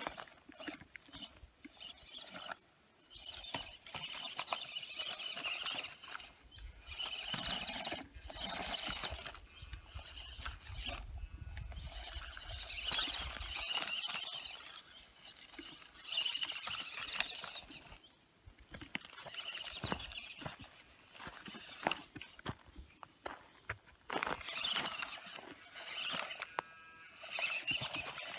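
Small 1/14 scale RC crawler's electric motor and gearbox whining in stop-start runs of a few seconds as it is driven over stones, with the odd click of wheels on rock.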